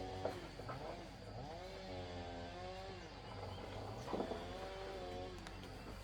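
A small engine revving up, holding a steady pitch for about a second, then dropping back, repeated three times.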